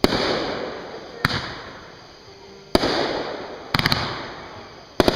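Aerial fireworks bursting: a sharp bang about every second and a half, each fading in a long rolling echo, with a quick string of crackling reports a little under four seconds in and another pair of bangs near the end.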